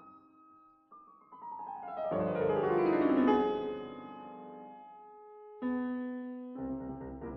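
Background keyboard music in a piano sound: sustained chords, with a falling run about two seconds in that swells to the loudest point, then fades before new chords come in near the end.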